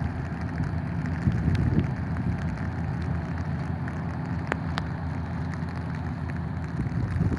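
Steady rain falling, with a few sharp drop ticks over a continuous low rumble.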